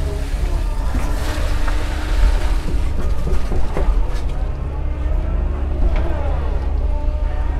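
Doosan excavator's diesel engine running steadily under load, with the hydraulic whine gliding up and down in pitch as the boom, arm and bucket work. A few knocks and clunks come through around the middle and again near the end.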